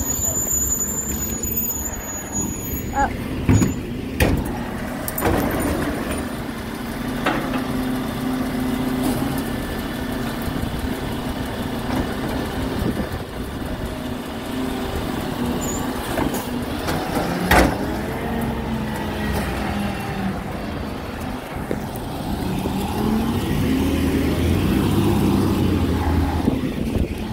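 Recycling lorry's diesel engine running steadily, with a few sharp knocks and bangs, the loudest about two thirds of the way through. Near the end the engine revs up and settles back down.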